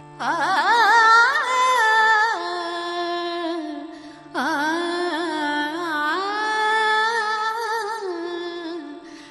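A woman singing the wordless opening of a Bengali song: long held notes with vibrato and ornamented bends. She sings two long phrases with a short breath about four seconds in, over a faint steady accompaniment.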